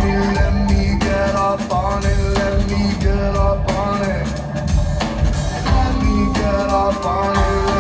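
Live rock band playing, with a steady drum kit beat under bass and sustained instrument tones.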